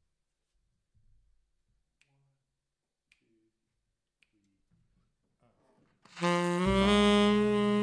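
Three finger snaps about a second apart counting in the tempo, then about six seconds in the band comes in: a tenor saxophone sounding a long note, with a double bass entering underneath a moment later.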